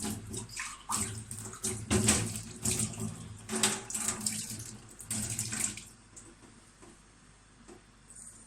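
Water running and splashing in uneven spurts as a spoonful of water is added to sugar for caramel; it stops about six seconds in.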